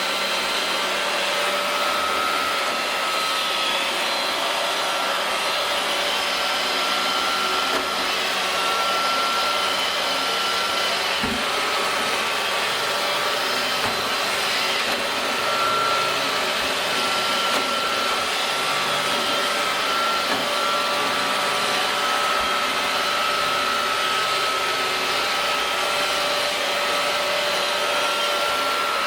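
iRobot Roomba robot vacuum running steadily while cleaning a door mat, its motor giving a continuous whine over the brushing and suction noise. A single light knock about eleven seconds in.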